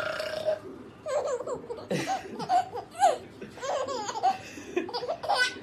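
A child laughing hard in repeated high-pitched peals, which start about a second in.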